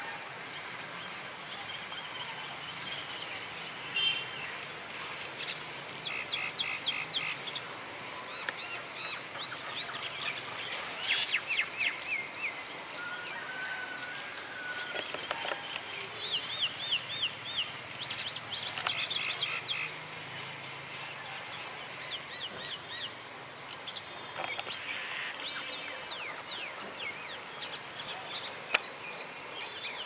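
Birds chirping and calling over a steady outdoor hiss: many short series of quick, sweeping whistled notes, some fast and rattling.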